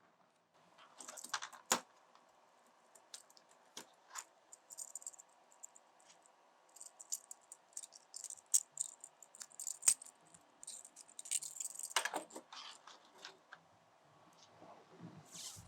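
Metal banding-strap pieces being handled and fitted together: scattered light clinks and rattles, with denser bursts of clicking about halfway through and again around twelve seconds in.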